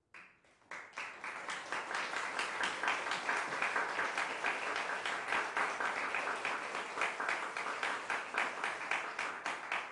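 Audience applauding: a few scattered claps at first, swelling to full, steady applause about a second in.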